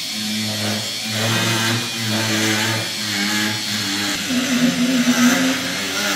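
Jeweller's rotary tool running a small ball burr into a silver bar, its motor pitch stepping up and down as the speed changes. It runs highest about two-thirds of the way through.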